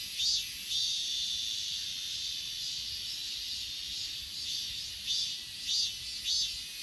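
Grass insects such as crickets calling together in a high, steady trill. Repeated chirps come about twice a second near the start and again near the end.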